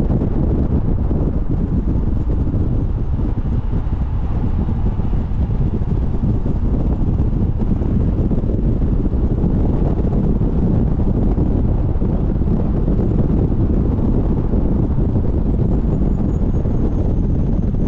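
Steady wind rumble on the microphone over the road noise of a BMW Z4 driving along at speed.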